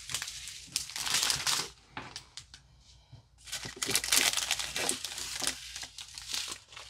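Small plastic zip-top bags of diamond painting drills crinkling as they are handled, in irregular bursts of rustling with light clicks between.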